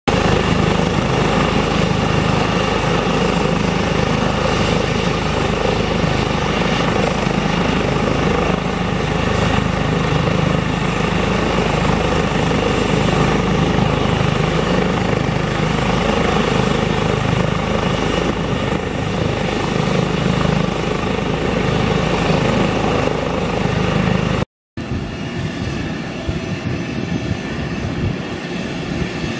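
Airbus H145M helicopter's twin turboshaft engines and rotors running steadily on the ground, a constant turbine whine over the rotor noise. About 25 seconds in the sound breaks off briefly and comes back quieter.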